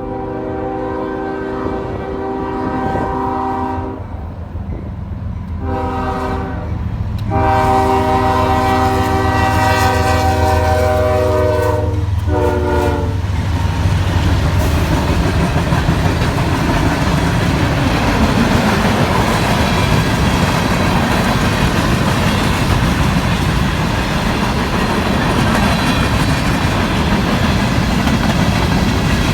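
CSX freight locomotive sounding its horn in four blasts, long, short, long, short, over the low rumble of its diesel engine. Then the train's cars roll past, with a steady loud rumble and clatter of wheels on rail for the rest of the time.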